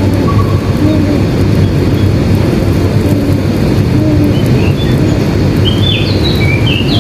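Birds chirping over a loud, steady low rumble, with a quick run of high chirps near the end.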